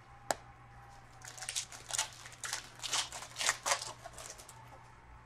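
Foil wrapper of a trading-card pack crinkling in the hands as it is opened, a quick run of crackles over about three seconds, after a single sharp click near the start.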